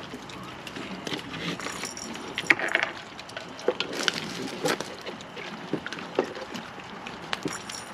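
Raccoons eating and moving about on a paved patio: scattered, irregular small clicks and scuffs, with a brief louder burst of noise about two and a half seconds in.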